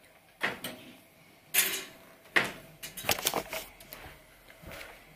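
A few sharp knocks and clicks of things being handled, with a quick run of clatter a little past the middle.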